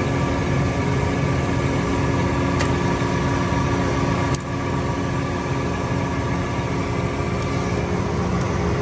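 John Deere 7R 310 tractor's diesel engine idling steadily, with faint metal clicks about two and a half and four and a half seconds in as a pick works at the rear PTO stub shaft.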